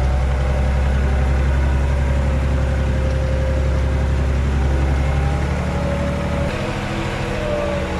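Tractor engine running steadily as the tractor drives along, with a faint whine over it; the deep low part of the engine note drops away about six and a half seconds in.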